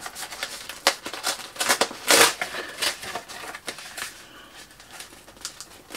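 Packaging being handled and opened by hand: rustling and crackling with a string of quick clicks and scrapes, the loudest about two seconds in.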